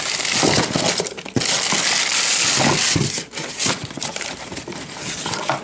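Plastic bag and paper packing crinkling and rustling in a cardboard box as a part is unwrapped by hand, with many short crackles.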